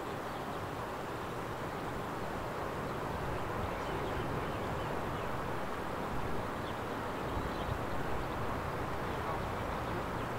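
Steady low rumbling hiss with no distinct events standing out.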